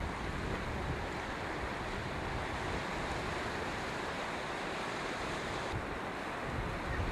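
Strong wind on a coast, buffeting the microphone with low gusty rumble, over a steady wash of sea surf.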